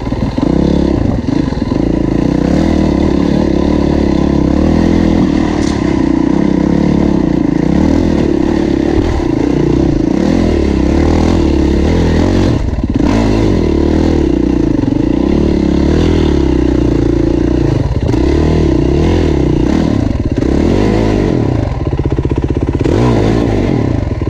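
Yamaha WR450F's single-cylinder four-stroke engine working under load up a steep rocky hill, its revs rising and dipping with the throttle, with clatter from the bike over the rough ground.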